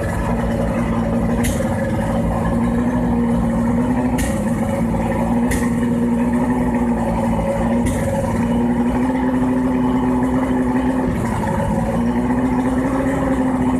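A 1996 Venom 225 outboard motor running steadily on flush muffs while trimmed up high. A sharp pop breaks in about five times at irregular intervals. This is the 'sneeze' that happens only when the motor is trimmed up and stops when it is trimmed down.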